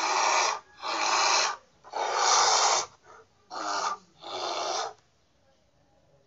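A bear vocalizing: about six harsh, breathy growls, each under a second long, in quick succession over the first five seconds.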